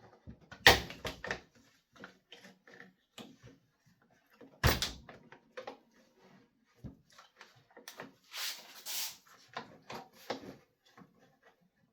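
Plastic engine cover and parts of an Echo PB250LN leaf blower being handled and fitted by hand: scattered clicks and knocks, two sharp ones about a second in and near the middle, with a brief scraping rustle later on.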